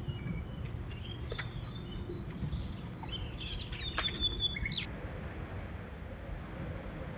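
Small songbirds giving short chirps and calls, most of them between about three and five seconds in, over a steady low background noise. A few sharp clicks stand out, the loudest about four seconds in.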